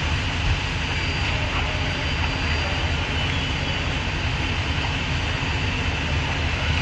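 A steady, loud mechanical drone: an engine's low rumble under an even hiss, holding level throughout.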